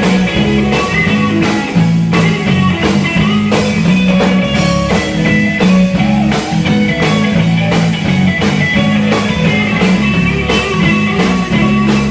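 Gospel band playing an instrumental groove: electric guitar over bass and drum kit with a steady beat.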